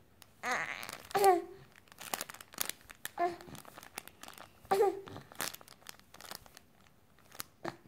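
A young baby cooing and grunting in short bursts, about half a second in, around three seconds and near five seconds, with light crinkling and small plastic clicks from a toy being handled.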